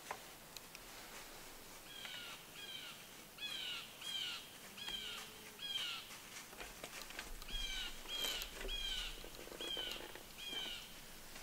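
A bird calling over and over in the woods: about a dozen short, harsh calls, each sliding down in pitch, starting about two seconds in and coming roughly every half second to second. A few faint clicks are heard as well.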